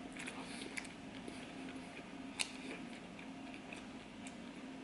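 Quiet chewing of a mouthful of sushi roll, with soft wet mouth clicks and one sharper click about halfway through, over a faint low hum.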